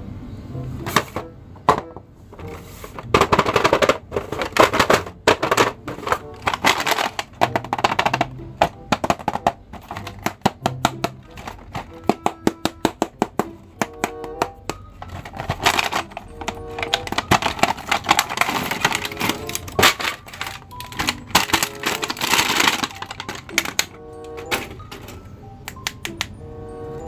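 Cardboard toy boxes with clear plastic windows being handled and opened, giving rapid irregular clicks and crackles, over background music.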